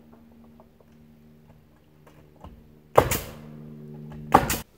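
Two loud shots from a pneumatic framing nailer driving 16-penny nails into a spruce tongue-and-groove roof deck, about a second and a half apart, each with a short ringing tail. Under them runs a steady machine hum and a few faint knocks.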